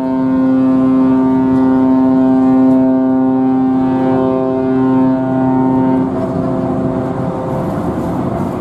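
A large car ferry's ship whistle sounding one long, loud blast, the prolonged signal of leaving the berth. It stops about seven seconds in and leaves a steady rushing noise.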